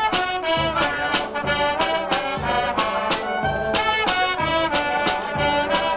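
Small street band playing a tune live: trumpets and clarinets carry the melody over a steady bass drum and snare drum beat.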